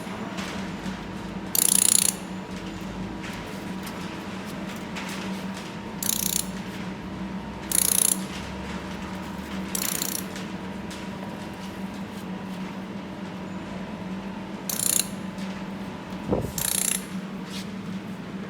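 Laser welding machine humming steadily, broken about six times by short bursts of high noise about half a second each as the welding head fires. There is a single knock near the end.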